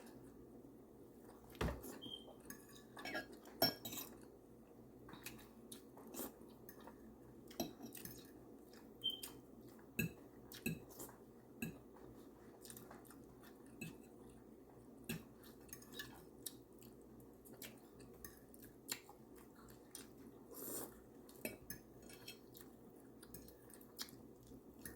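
Cutlery clinking and scraping on plates at a meal, in scattered light taps every second or so, with quiet chewing between.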